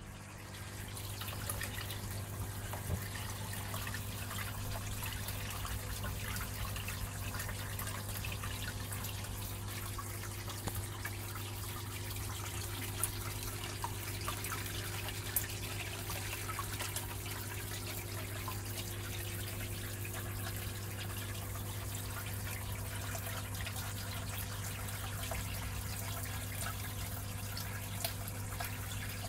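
Water trickling and splashing in a fry tub over the steady low hum of a small submerged aquarium filter pump, with an occasional small click.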